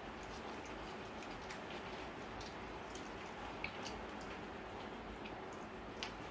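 Quiet eating sounds: scattered small wet clicks and smacks of chewing grilled tilapia eaten by hand, over a steady background hiss.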